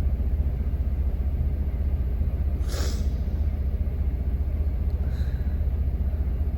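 Steady low rumble of a semi truck heard inside the cab, with a short hiss near the middle.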